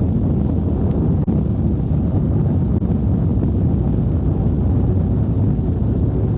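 Steady, loud low rumbling noise with no distinct tones or rhythm.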